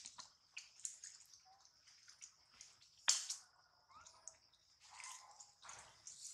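Faint scattered clicks and snaps over a thin, steady high-pitched whine, with one sharper, louder snap about three seconds in.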